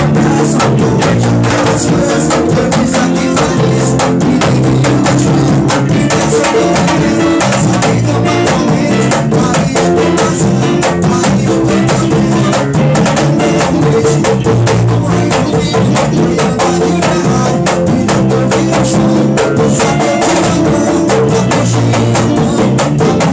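Band music with drum kit and percussion playing a steady, dense beat over bass notes.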